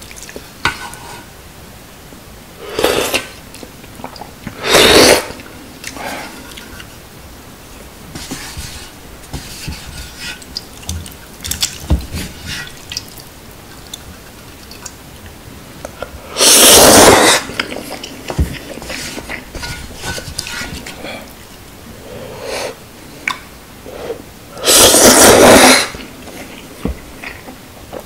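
Ramen noodles slurped loudly four times, the last two about a second long each, with chopsticks clicking against a thin aluminium yangeun pot and quieter chewing in between.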